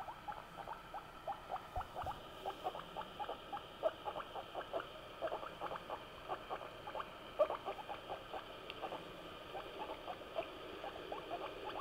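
Guinea pig giving a rapid string of short squeaky calls, about four or five a second, with one louder call about seven seconds in.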